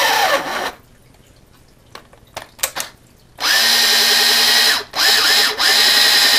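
Electric motor and gearbox of a 1983 Radio Shack Tiger RC buggy running on a 2-cell LiPo, whining at full throttle with the wheels spinning free. A short whine winds down at the start; after a pause with a few light clicks come three steady bursts of throttle with brief breaks between them.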